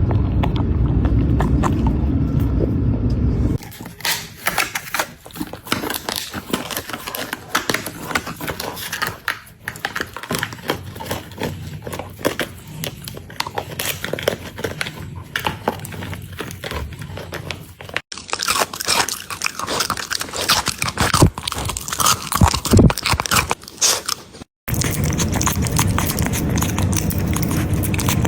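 A dog chewing and crunching food close to the microphone: a dense run of crisp crunches and bites, broken by abrupt cuts twice. A loud low rumble takes their place in the first few seconds and again near the end.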